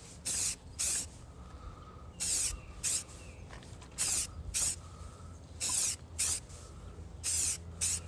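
Rust-Oleum aerosol spray paint can spraying flat deep forest green in short hissing bursts, about ten of them, coming in quick pairs every second and a half or so as stripes are laid on.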